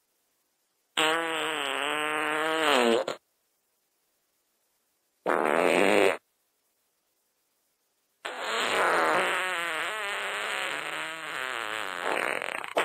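Three fart sound effects, each followed by dead silence. The first is about two seconds long with a wobbling pitch. The second is short, under a second. The third is long, about four and a half seconds, again with a wavering pitch.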